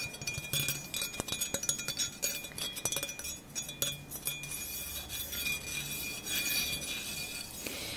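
Light metallic clinks and taps from a ritual knife (athame) handled close to the microphone, many small clicks scattered throughout, over a faint steady high ringing tone.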